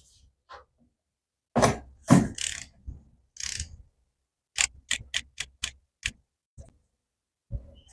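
A 3/8-inch ratchet loosening the transmission drain plug: a few scraping knocks of the tool, then a quick run of about seven sharp clicks, about five a second, around the middle.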